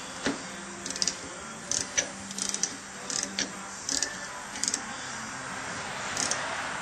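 Hand tools clicking in short, irregular bursts, about two a second, giving way to a steady hiss near the end.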